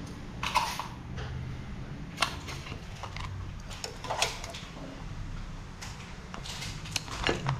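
Metal tongs and a spatula clicking and scraping against a wok and crab shells as cooked mud crabs are lifted onto a plate: scattered sharp clicks every second or two over a low steady hum.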